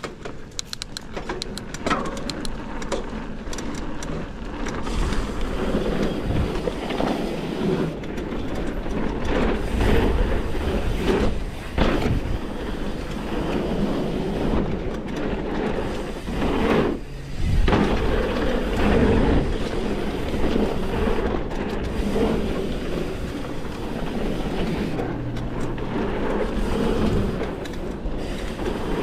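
Mountain bike riding down a packed-dirt trail: a steady rushing rumble of the tyres rolling over dirt and leaves, with the bike rattling and knocking over bumps. The noise drops away for a moment a little past the middle.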